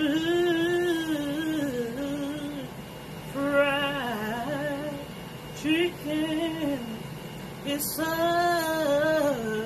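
A woman singing a slow tune in long held notes that slide up and down between phrases.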